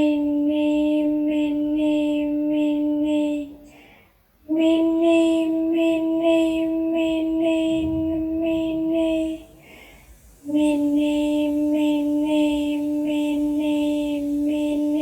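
A voice chanting "mini mini" over and over on one unchanging pitch, in phrases of about five seconds with a short breath-like pause before each new phrase, about four seconds in and again about ten seconds in.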